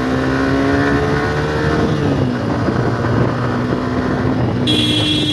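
Motorcycle engine running on the move, its pitch rising and falling with the throttle. Near the end a high-pitched beep lasts about a second.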